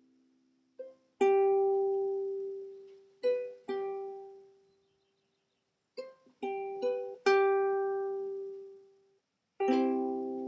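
Background music: a slow, sparse melody of plucked notes, each struck sharply and left to ring out and fade, in short phrases with brief silences between them.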